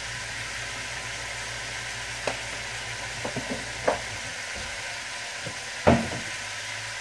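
Broccoli and onions sizzling in butter and oil in a wok, a steady hiss, with a few short knocks of a utensil or container, the loudest about six seconds in.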